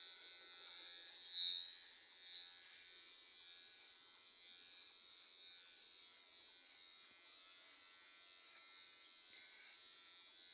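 Electric hair clipper running with a steady high-pitched buzz while cutting hair, briefly louder between one and two seconds in.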